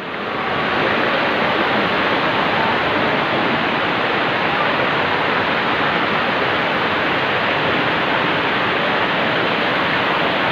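Steady rush of falling and spraying water from a water-park play structure's fountains and jets.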